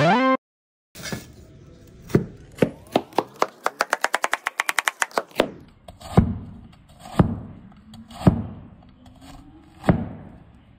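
A brief pitched sound effect with rising tones at the very start. Then a cleaver slices bitter gourd on a plastic cutting board: a quick run of light knife taps against the board, about five a second, followed by four heavier single chops about a second apart.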